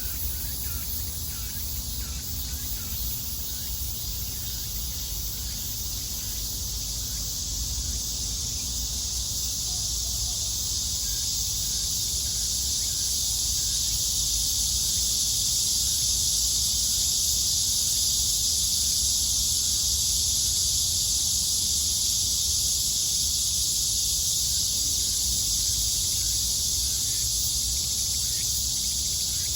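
Chorus of cicadas buzzing steadily in a high, dense drone that swells louder about halfway through, over a low steady rumble.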